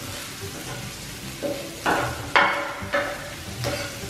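Onion frying in oil in a pan, a steady sizzle, over which a steel cleaver scrapes chopped garlic off a wooden cutting board into the pan in about five short, sharp strokes from about a second and a half in.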